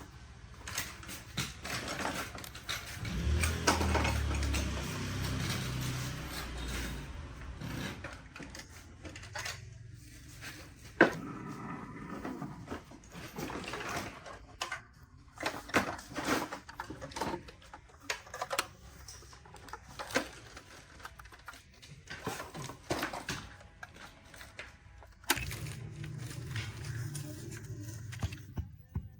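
Hard plastic toy parts clicking, snapping and knocking as an action figure is handled and moved, in irregular bursts of small clicks. A low rumble comes in twice, about three seconds in and again near the end.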